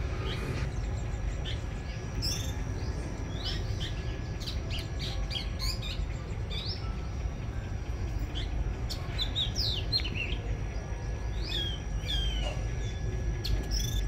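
Backyard birds chirping: many short, quick calls, scattered and overlapping, over a steady low background rumble.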